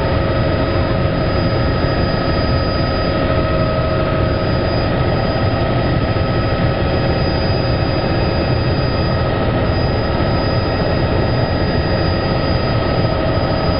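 Helicopter in flight, heard from on board: a steady, loud engine and rotor din with several constant high whining tones over a low rumble.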